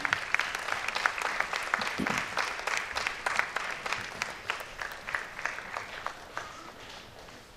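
Audience applauding, a dense patter of clapping that thins out and fades near the end.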